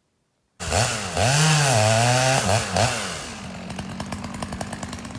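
Chainsaw cutting down a tree: it starts abruptly about half a second in, revs up and down several times, then runs lower and steadier from a little past halfway.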